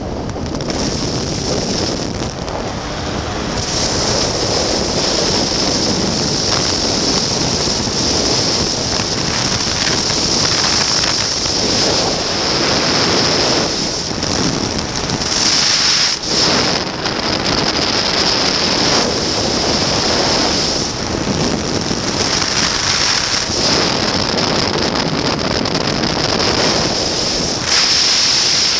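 Wind rushing over the microphone of a Pegasus Quantum 912 flexwing microlight trike in flight: a loud, steady rush that swells and eases, with a brief dip about halfway through.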